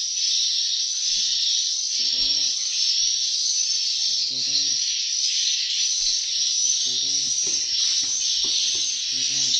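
Swiftlet calls filling a swiftlet house: a constant dense, high chirping twitter, with a lower pitched call every second or two. It is the sound of swiftlet lure and roost calls played to draw and hold swiftlets.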